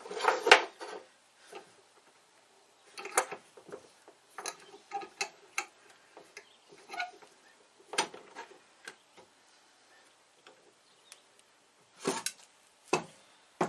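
Scattered clicks, clinks and knocks of a metal clamp and its wooden supports being shifted and set down on a wooden workbench while the setup is levelled to take out a wobble, with a couple of sharper knocks near the end.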